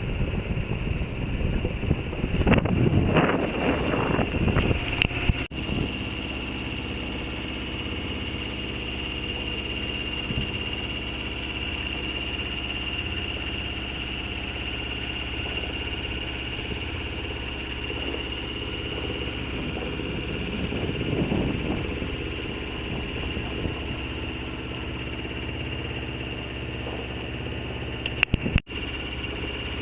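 Sailboat's engine running steadily under way, a constant low drone. Gusts of wind on the microphone a few seconds in and again around twenty seconds in.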